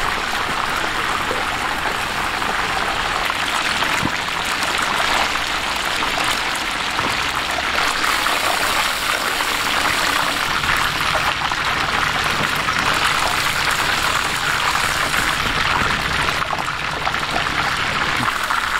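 Chicken deep-frying in hot oil: a steady, dense sizzling crackle.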